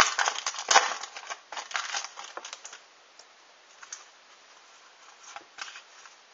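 Foil wrapper of a Pokémon booster pack being torn open and crinkled: a run of sharp crackles for the first few seconds, then only a few faint scattered clicks.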